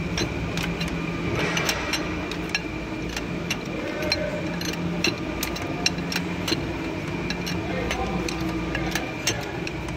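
Irregular light metallic clicks of a wrench working the nut of an injector-cup puller as it draws an old injector cup out of a Volvo D12 cylinder head, over a steady shop hum.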